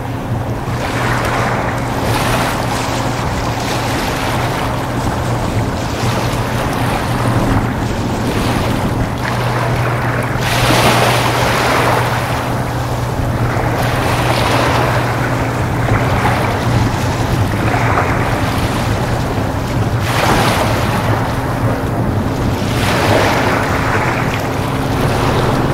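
Low, steady drone of the Queen of Burnaby ferry's diesel engines as it gets under way, under gusty wind on the microphone and the wash of choppy water.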